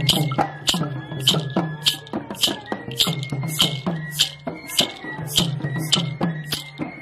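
Folk music: a quick, steady rhythm of low drum strokes that bend down in pitch, crisp shaker or jingle hits, and a thin high held note.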